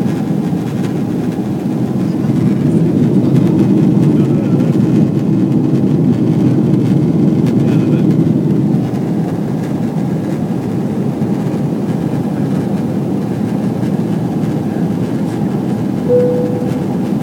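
Steady cabin noise inside a climbing Boeing 777-300ER, an even low rumble of engine and airflow, a little louder for several seconds from about two seconds in. Near the end comes a brief steady tone.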